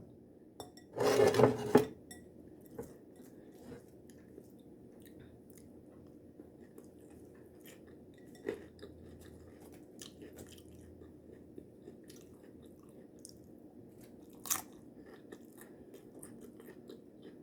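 A person eating taco salad close to the microphone: a loud crunch of tortilla chips about a second in, then quiet chewing with small scattered mouth clicks, and one sharper click near the end.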